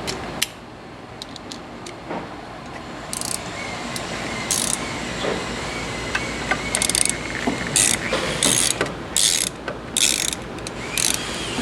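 A ratchet wrench clicking in short repeated bursts as the nuts holding the filling machine's cylinder are tightened. The strokes come more often in the second half.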